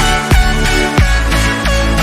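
Electronic background music with a heavy bass and a steady, punchy beat.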